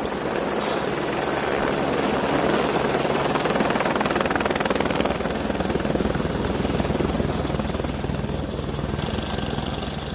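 A loud, steady, rushing roar with a low hum under it, cutting off abruptly near the end.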